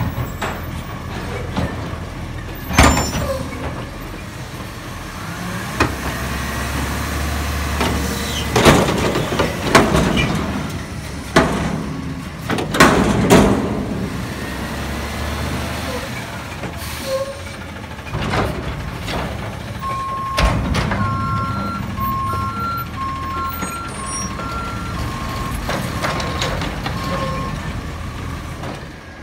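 Front-loader garbage truck (Autocar with a McNeilus body) running its hydraulic arms to lift a dumpster over the cab: the engine revs up while the arms raise, and loud bangs come as the container is shaken and knocked empty. Later, from about two-thirds of the way in, the truck's unusual backup alarm beeps, alternating between two pitches.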